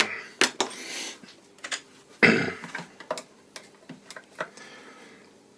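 Scattered clicks and taps of a hard plastic Fluke clamp meter and a small tool being handled as the case is worked open, with one louder knock about two seconds in.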